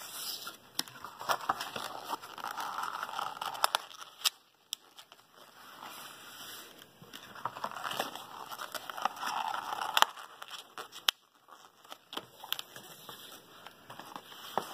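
A white paperboard packaging box being folded and assembled by hand: paperboard rustling and sliding against itself in stretches, with scattered sharp clicks and taps as the panels are creased and folded.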